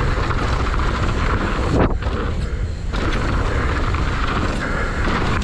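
Mountain bike's knobby tyres rumbling over a dry dirt and gravel trail at speed, with wind rushing over the microphone. The hiss briefly drops away for about a second, about two seconds in.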